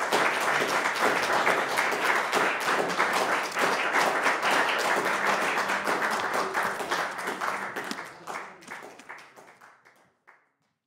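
Audience applauding, many hands clapping steadily, then fading out over the last few seconds.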